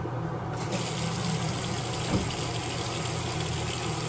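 Water running steadily from a tap, switched on about half a second in, over a steady low hum.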